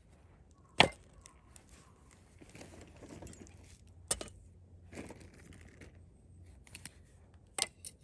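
Camping gear being handled: rustling and crinkling, broken by a few sharp clicks or knocks, the loudest about a second in and others near the middle and near the end.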